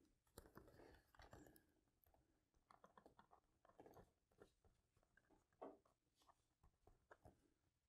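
Near silence with faint, scattered rustles and small clicks: hands handling a foam model-airplane rudder while dabbing CA glue onto it from the bottle.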